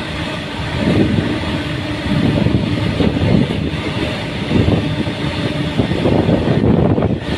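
Long-haul freight train of empty open-top wagons rolling past below: a continuous loud rumble of wheels on the rails that swells and eases unevenly.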